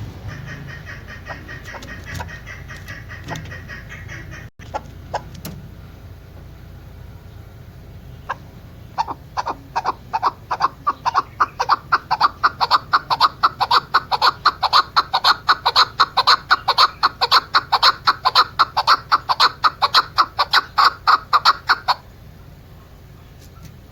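Chukar partridge calling: a long run of rapid, clucking chuck notes, about four or five a second, which starts about nine seconds in, grows louder and stops abruptly near the end. Fainter calls come over a low hum in the first few seconds.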